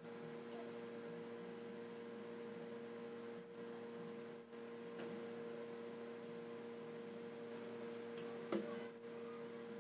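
Steady low electrical hum under faint handling of wooden pieces, then a short knock and clatter about eight and a half seconds in as a plastic quick-release bar clamp is set on a glued wooden block.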